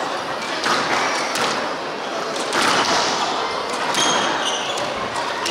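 Squash rally: the ball knocking off racquets and the walls roughly once a second, with brief squeaks of court shoes on the wooden floor.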